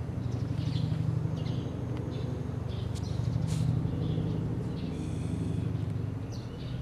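Outdoor ambience: a steady low rumble with short, scattered bird chirps.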